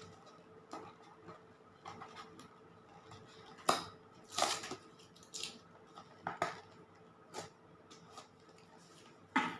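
A product box being opened and its packaging handled by hand: irregular light clicks, taps and rustles with quiet gaps between them, a little stronger about four seconds in.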